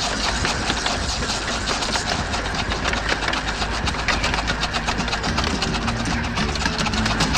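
Working model steam engine running, a fast, even mechanical clatter of its moving parts. Music starts to come in near the end.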